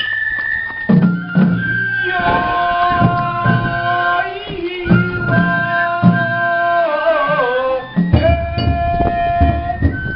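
Japanese festival float music (hayashi): repeated taiko drum strokes under a high, held flute melody, which bends and wavers a little before the end.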